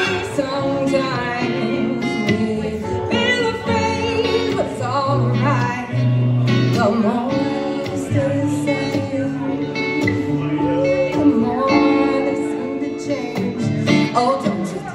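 A live song: a woman singing, accompanied by plucked acoustic guitar and keyboard.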